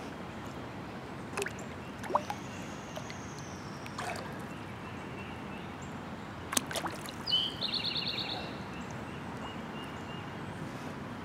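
Steady rush of a small stream's water, with a few brief splashes as a hooked rainbow trout thrashes in the shallows. A bird trills briefly about seven seconds in.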